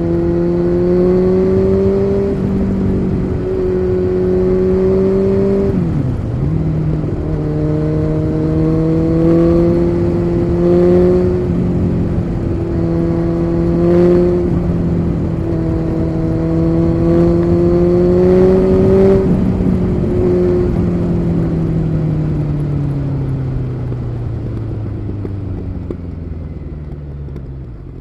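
Kawasaki Z900's inline-four engine running through an SC Project aftermarket exhaust while being ridden. The pitch climbs gently, dips sharply about six seconds in at a gear change, and holds at a slightly rising pitch. It then falls away steadily in pitch and loudness over the last third as the revs drop.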